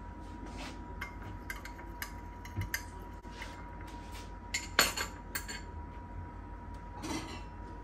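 Scattered light clicks and clinks, a few at a time, the loudest about five seconds in, over a faint steady high tone.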